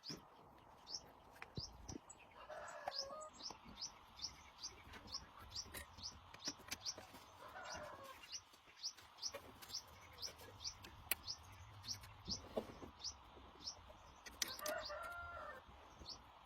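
A small bird chirping steadily in short, high, falling notes about twice a second, with a chicken calling three times and a few faint taps.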